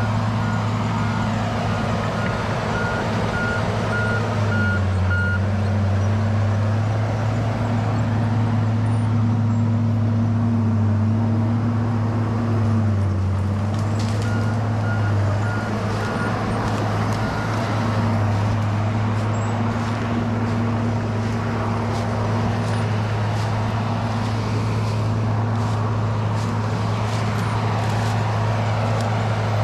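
Case 850K crawler bulldozer's diesel engine running steadily, its pitch sagging under load in the first half, with the back-up alarm beeping twice, at the start and again around the middle as the dozer reverses.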